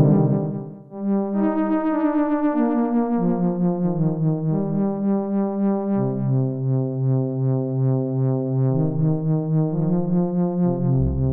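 Sequential Prophet-6 analogue polyphonic synthesizer playing a factory preset: sustained, layered notes moving through a melodic chord line, with a slow pulsing wobble in level. A previous sound dies away in the first second, and a deeper bass note comes in near the end.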